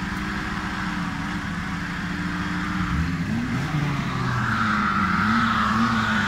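Off-road 4x4's engine revving under load in deep mud. Its pitch climbs about three seconds in, then rises and falls, and it grows louder, with a higher whine joining about four seconds in.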